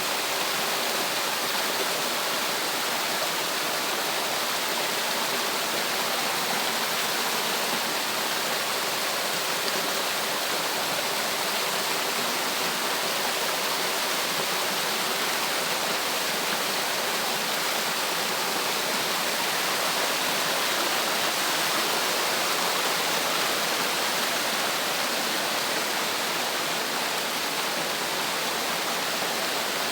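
Water rushing steadily down a cascade, a constant even roar of falling water with no breaks.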